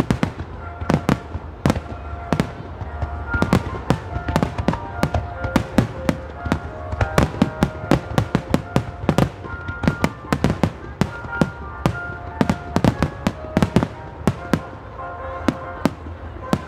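Aerial fireworks shells bursting in rapid succession, dozens of sharp bangs that thin out near the end, with music playing underneath.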